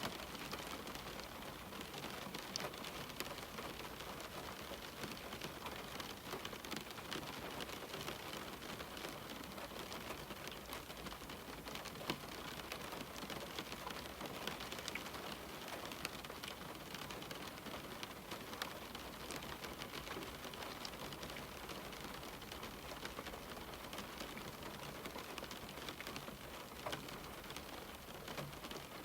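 Steady rain falling on a window pane: an even hiss with many small drop ticks scattered through it.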